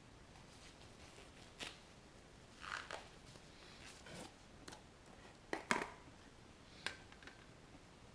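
Casting supplies being handled by hand: about half a dozen scattered light clicks, taps and rustles of small objects, the loudest a quick pair about two-thirds of the way through.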